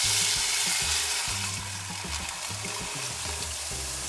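Water poured into a hot pot of brown rice, barley and radish seeds toasting in margarine, hissing and sizzling as it hits the hot grains and pan. The hiss gradually dies down over the first two seconds as the pot fills and cools.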